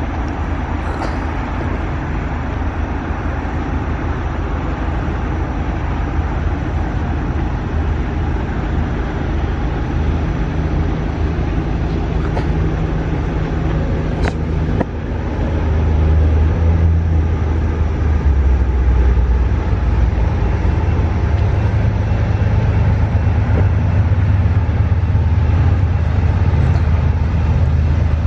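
Diesel locomotive engines of an approaching intermodal freight train, a steady low rumble that grows louder about halfway through.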